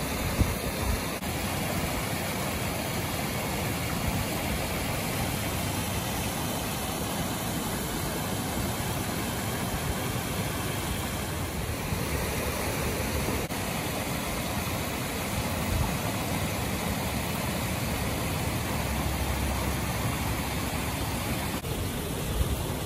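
Steady rush of small waterfalls pouring into a pond, with an uneven low rumble underneath.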